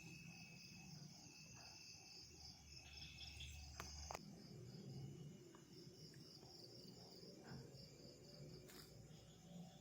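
Faint chorus of crickets trilling steadily, with two sharp clicks a little before four seconds in.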